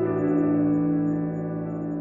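Slow ambient background music with held, sustained notes.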